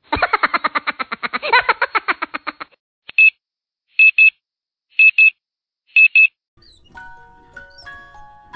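A rapid stuttering, pitched sound for about two and a half seconds, then an electronic alarm-clock beep sounding in quick pairs, four times about a second apart. Near the end a soft bell-like melody of music starts.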